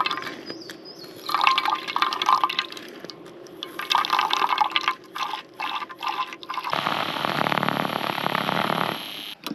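Water being poured and splashed in a few short bursts, then a steady pour of about two seconds near the end, while a camp espresso maker is rinsed and refilled for another shot.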